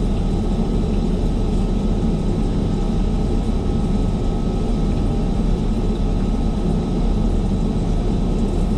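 Steady low roar of airliner cabin noise inside the lavatory, with a faint steady high tone above it.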